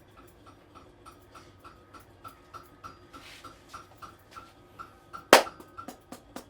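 Rapid rhythmic hand tapping of a head massage, about four strokes a second. A single loud, sharp crack comes about five seconds in.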